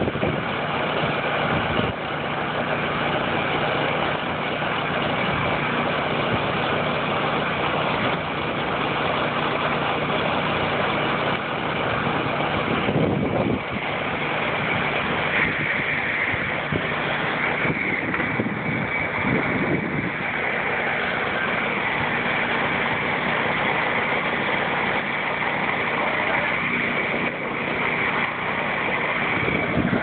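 A box ambulance's truck engine idling steadily with a constant low hum.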